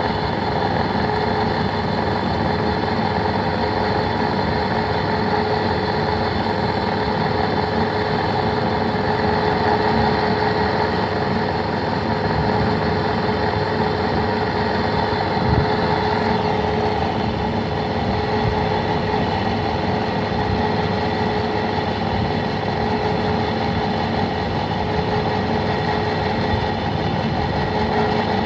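Lathe running steadily with a constant machine hum and whine while a taper is turned on the workpiece, the tool fed by hand through the compound slide set at 5 degrees.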